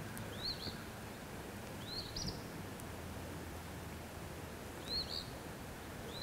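A small songbird calling: four short, high, quick calls a second and a half to three seconds apart, over a steady outdoor hiss and low hum.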